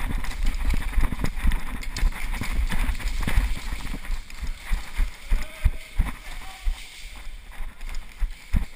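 Running footsteps on a concrete floor, a string of uneven thuds.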